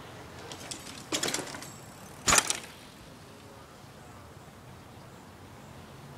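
Bicycle rattling briefly, then a single sharp, loud clattering impact a little over two seconds in.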